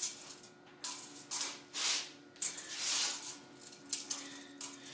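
A steel tape measure being worked along a length of steel pipe: irregular short scrapes and clicks as the blade is pulled out and held against the tube, over a faint steady hum.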